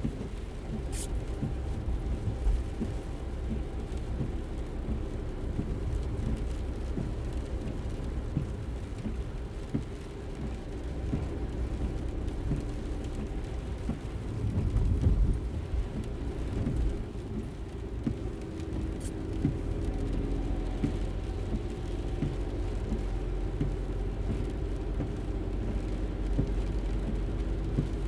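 Interior of a moving car: steady low engine and road rumble with faint engine tones, swelling louder for a moment about halfway through.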